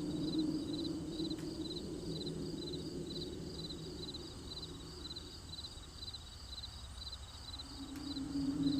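Crickets chirping in a steady, even rhythm, about two short, high chirps a second. A low steady hum sits underneath, fading away in the middle and coming back near the end.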